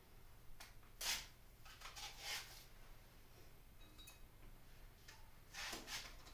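Faint rustling of dried pampas grass and dried flowers being handled, in a few short bursts: about a second in, around two seconds in, and again near the end.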